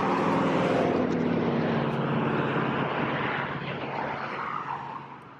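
An engine's drone at a steady pitch, loud at first and fading away over about five seconds, as a motor passes and moves off.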